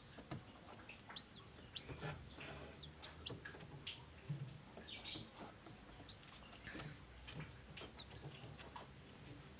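Chickens clucking faintly, with scattered light clicks and knocks throughout.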